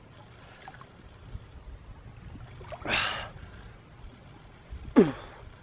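A swimmer doing doggy paddle in a cold lake: quiet water sloshing and lapping around him. A louder splash-like burst comes about three seconds in, and near the end there is a short grunt from him that falls in pitch.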